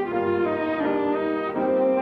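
Two violins playing a duet in harmony, each holding a note and moving to the next about every half second.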